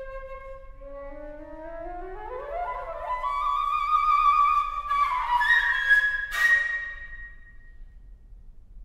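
Solo concert flute: a held middle note, then a low note that climbs in a fast run to loud high notes, a sharp accented attack, and a last high note that fades out about eight seconds in.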